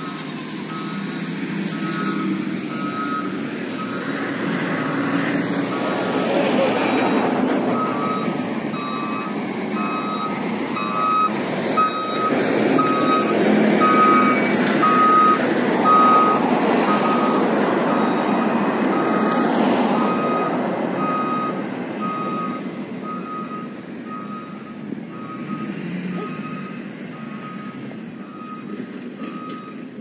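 Motor grader reversing, its back-up alarm beeping steadily over the running diesel engine. The noise swells as the machine passes close, about halfway through, and fades toward the end.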